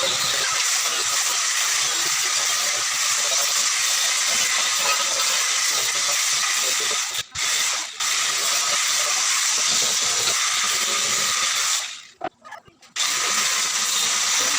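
A workshop tool running with a steady high hiss, stopping briefly twice about seven and eight seconds in and for about a second near the end before starting again.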